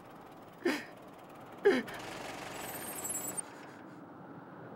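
A man gasps twice, sobbing. Then a police car pulls up with tyre noise and a brief high brake squeal that cuts off about three and a half seconds in.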